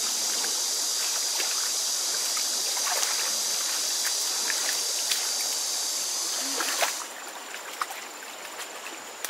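Shallow stream water trickling, with small splashes as hands work in it, over a high steady insect drone that cuts off suddenly about seven seconds in.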